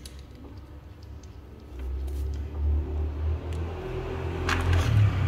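A motor vehicle's engine running, a low rumble that comes in about two seconds in and grows louder toward the end, with a few light clicks near the end.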